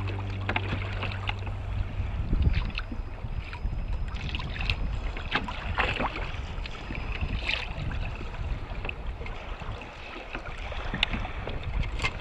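Water slapping and lapping against a kayak's hull, with wind on the microphone and scattered small splashes and knocks.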